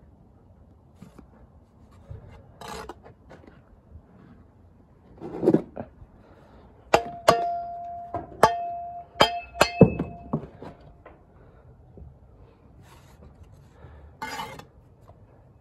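Steel brick trowel striking a brick about six times in quick succession, the blade ringing between strikes. Softer scrapes of the trowel on brick and mortar come before and after.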